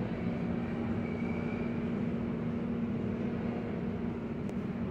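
New York City Subway train running past on the express track without stopping: a steady rumble of wheels on rail, with a faint high whine about a second in and a single sharp click near the end.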